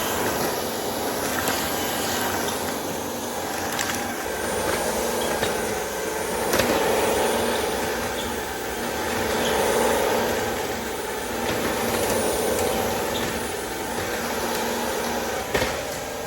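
Joyami cordless wet-dry floor vacuum running steadily, its motor and brush roller hum swelling and easing every few seconds, with a few light clicks.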